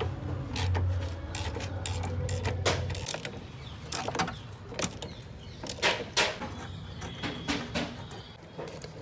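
Irregular sharp metallic clicks and clinks of a hand wrench working on bolts and fittings around a car battery, thickest in the second half. A low steady hum runs underneath for the first three seconds or so.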